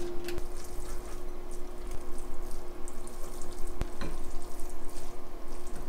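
Wooden chopsticks mixing noodles with sticky red bibimmyeon sauce in a ceramic bowl: a wet, squishy stirring sound with a few sharp clicks of the chopsticks against the bowl, over a steady low hum.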